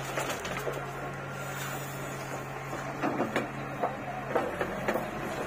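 Backhoe loader's diesel engine running steadily under hydraulic work, with a few faint knocks.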